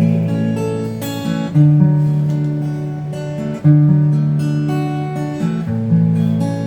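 Instrumental break in a Cantonese ballad: acoustic-style guitar chords, a new chord struck about every two seconds over sustained low notes, with no singing.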